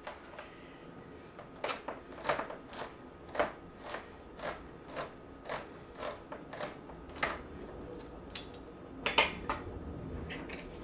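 Handheld manual can opener cutting around the rim of a metal can, a steady series of short clicks, about two a second, as the key is turned. A louder clatter comes near the end.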